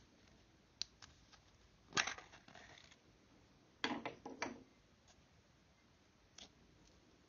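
Glossy green slime being squeezed and pressed between fingers, giving short sharp pops and crackles of trapped air. The loudest crackles come about two seconds in and again around four seconds, with a few single clicks between.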